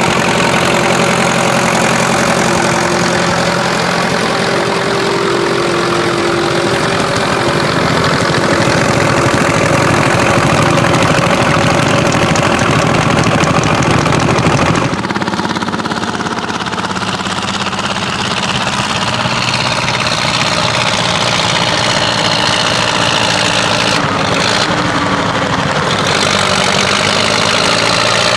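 1953 Steyr 280 tractor's diesel engine running steadily while pulling a plow. Its note changes abruptly about halfway through.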